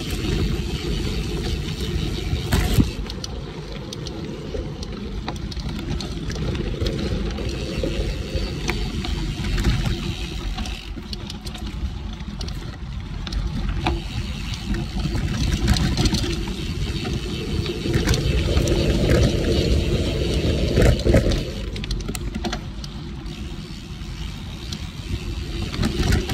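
Gravel bike riding fast down dirt singletrack: a steady rushing rumble of wind on the microphone and 47 mm tyres on the dirt, swelling twice as speed picks up, with scattered clicks and rattles from the bike over bumps and a sharp knock about three seconds in.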